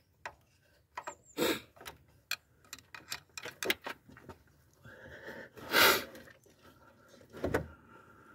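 Scattered clicks and metallic clinks of hand tools and fuel-line fittings being handled on a diesel high-pressure fuel pump, with a louder clatter about six seconds in and a dull knock shortly after.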